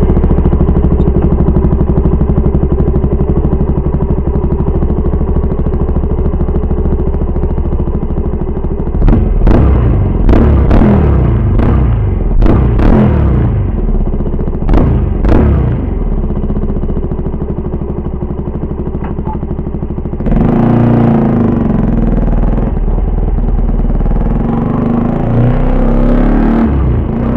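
A KTM Duke 200's single-cylinder engine through an SC-Project SC1-R exhaust, idling steadily, then blipped in a series of short, sharp revs about a third of the way in. It settles back to idle, then runs louder for the last several seconds.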